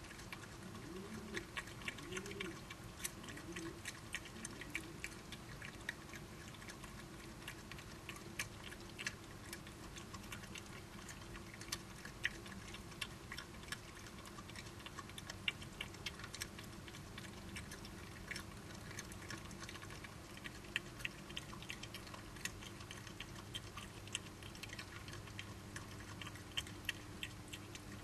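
Badgers chewing food: a rapid, irregular run of sharp crunchy clicks.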